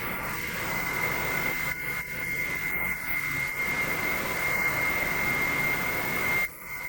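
Hydraulic pump of a large 1:14 scale RC excavator running steadily, a high constant whine over a rushing noise as oil is driven to the cylinders. The level dips briefly near the end.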